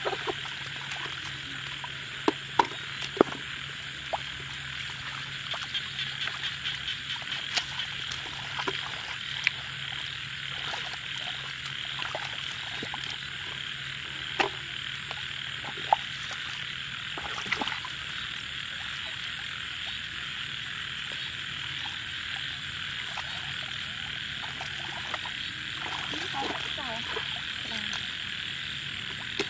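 A dense chorus of frogs calling steadily from the flooded paddy, with one frog croaking in a quick run of pulses about six to eight seconds in. A few short, sharp slaps and splashes of water and mud stand out over it.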